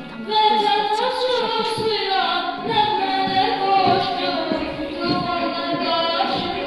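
A boy singing a slow melody into a microphone, with long held notes that slide between pitches.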